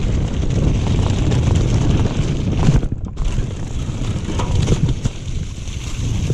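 Wind buffeting the microphone of a camera riding along on a mountain bike: a loud, steady low rumble that drops away briefly about three seconds in.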